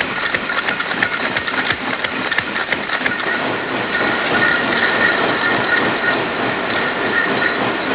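Can-making machinery pressing and feeding tin-can lids, running with a fast, steady clatter of many small clicks over a faint steady whine. The clatter turns brighter about three seconds in.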